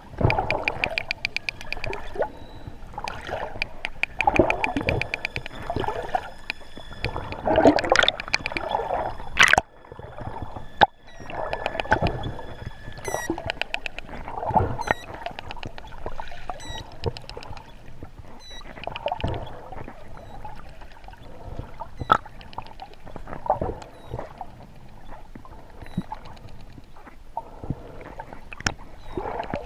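Wild dolphins heard underwater: rapid click trains and buzzes mixed with whistles, and many short rising chirps in the second half. Water rushes and gurgles over them, loudest about eight to ten seconds in.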